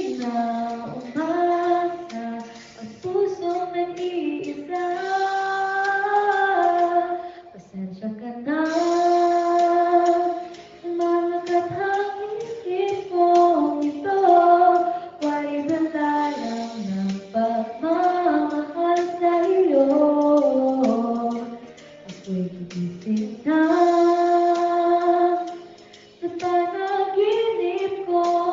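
A young woman singing a slow Tagalog ballad into a handheld microphone, in long held phrases with short breaths between them.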